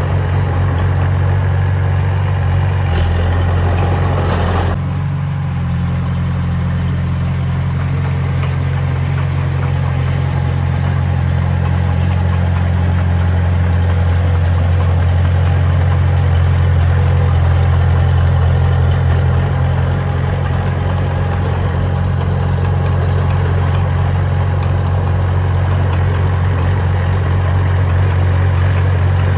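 Diesel engine of a heavy construction machine running steadily with a deep, even drone, with a brief harsher stretch between about three and five seconds in.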